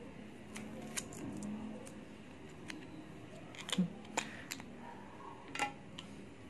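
Small clear plastic microSD card case being handled and pried open by hand: several sharp plastic clicks and snaps, the loudest a little past halfway.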